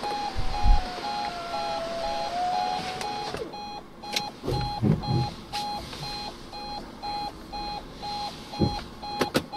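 A car's warning chime beeping steadily about three times a second. Over the first three seconds or so an electric window motor whines as the windows close. A few low thumps.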